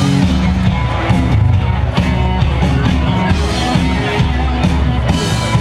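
Live amplified rock band playing outdoors, with a strong bass line and crowd noise underneath.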